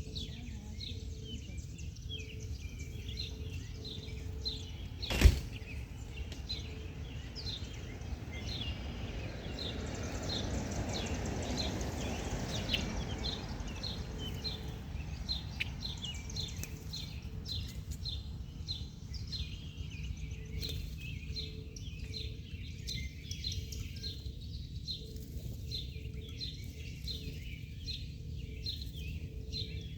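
Small songbirds chirping over and over, short high chirps about one or two a second, over a steady low outdoor rumble. A single sharp click about five seconds in.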